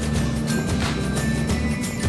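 Background music with a steady beat over a sustained bass line.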